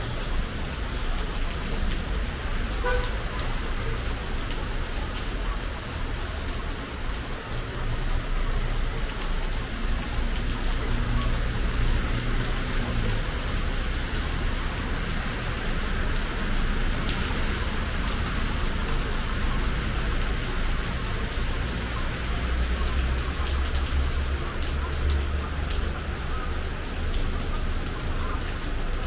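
Heavy rain falling steadily: a dense, even hiss, with a low rumble coming and going underneath.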